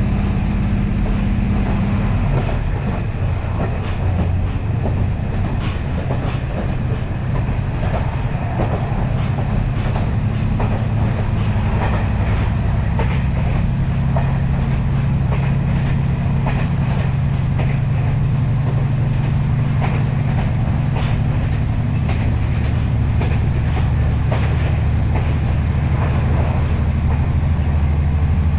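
KiHa 40 series diesel railcar running at speed, heard from inside the car: the steady drone of its diesel engine under irregular clicking of wheels over rail joints. The engine note changes slightly about two seconds in.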